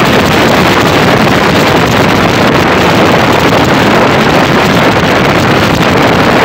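Loud, steady wind rush buffeting the microphone of a phone carried on a moving motorcycle, with the bike's running and road noise blended into it.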